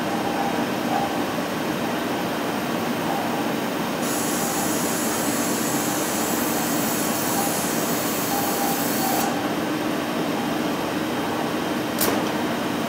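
Steady running hum and whir of a Stäubli robot assembly cell and its conveyors. A high hiss joins in for about five seconds in the middle and stops abruptly, and there is one sharp click near the end.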